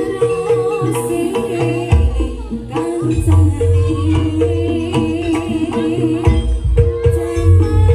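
Live jaranan gamelan music: hand drums and gong strokes under a rhythmic figure of repeated metal tones, with a wavering high melody line over it.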